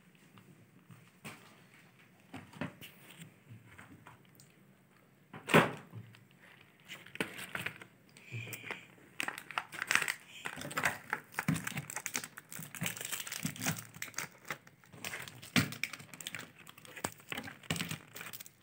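Wrapped chocolate bars and a plastic tray box being handled: scattered clicks and rustles, a sharp knock about five and a half seconds in, then busy crinkling of wrappers from about seven seconds on.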